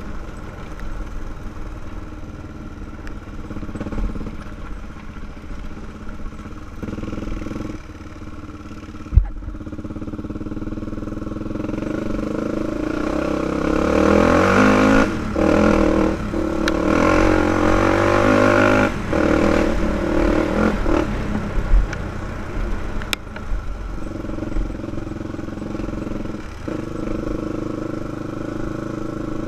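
2005 Honda 400EX ATV's single-cylinder four-stroke engine running under way. From about twelve seconds in the engine note climbs and grows louder, with several brief dips. There is a single sharp thump about nine seconds in.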